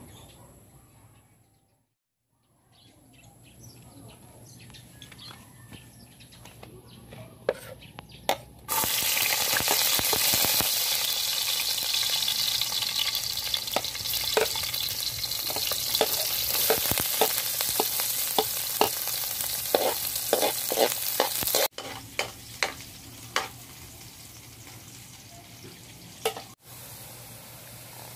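Garlic and sliced onion sizzling in hot oil in a metal wok, with a metal spatula clicking and scraping against the pan. The sizzle builds over the first few seconds, turns loud about a third of the way in when more goes into the oil, and drops abruptly quieter about three quarters of the way through.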